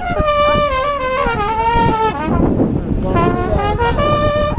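A small brass horn played in a string of held, wavering notes that step down in pitch, with a short break about halfway through. The bus's engine and road rumble run underneath.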